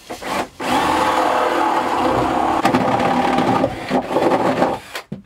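Cordless drill with a spade bit boring a hole through wooden framing: a few short trigger blips, then a steady run of about four seconds under load that stops near the end.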